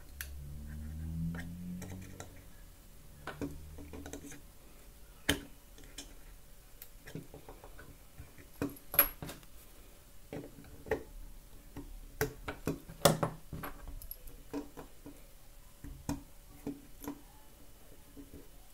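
Thin metal pick and tweezers scraping and clicking against a glued circuit board and the walnut case as the board is pried loose, in irregular small ticks and scrapes. A low hum runs under the first few seconds.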